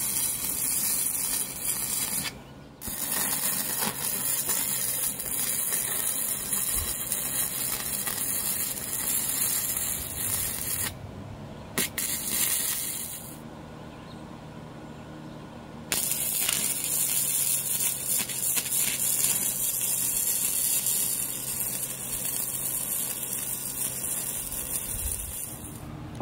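Electric arc welding on steel channel: the steady crackling sizzle of the arc in long runs. It breaks off briefly about two seconds in and again around eleven seconds, then stops for a few seconds from about thirteen to sixteen seconds before the next run.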